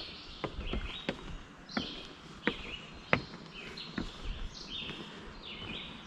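Footsteps knocking on wooden stair treads and then on the planks of a wooden footbridge, an uneven step roughly every half-second to second. Birds call throughout.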